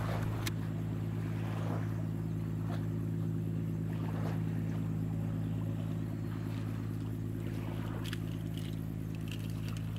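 Steady low drone of a boat engine running at constant speed, with light wash of water and wind in the background.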